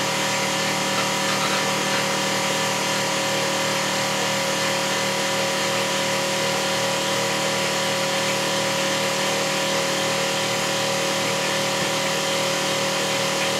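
Reef Vacuum RV-20's electric water pump running steadily, circulating the siphoned tank water through its filter sock: an even hum with a steady hiss that does not change.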